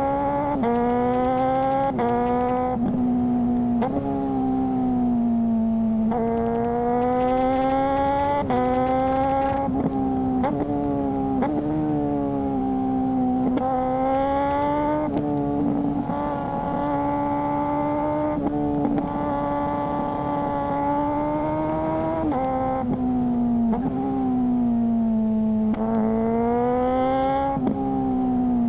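Suzuki GSR600's inline-four through a GPR Ghost aftermarket exhaust, accelerating through the gears: the engine pitch climbs, then drops sharply at each quickshifted upshift, again and again, with some stretches of falling revs between pulls.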